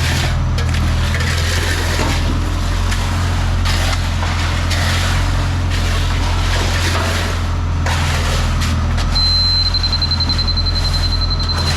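Concrete pump truck's diesel engine running steadily under load while concrete is pumped, with scraping and knocking noises from the work over it. A high, steady electronic beep starts about nine seconds in and holds.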